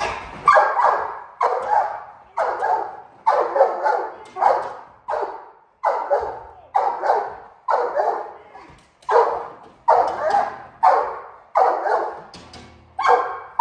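Large brindle mastiff-type protection dog barking hard and repeatedly, about one and a half barks a second, with a short pause near the end. It is defensive barking at a masked intruder at the window.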